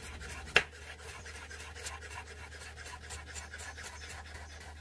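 Chef's knife dicing raw potato on a wooden cutting board: fast, light, even taps of the blade on the board, with one louder knock just over half a second in.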